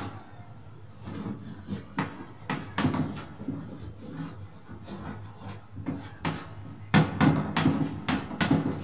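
Chalk writing on a blackboard: a run of short scratching and tapping strokes, thickest and loudest about seven to eight and a half seconds in.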